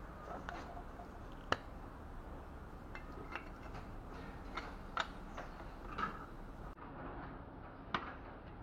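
Scattered light metal clicks and clinks, irregular and a second or so apart, as engine parts and hand tools are handled during cylinder-head reassembly.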